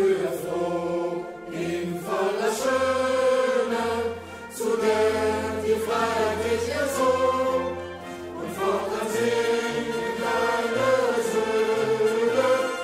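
Background music: a choir singing slow, sustained phrases over low held bass notes.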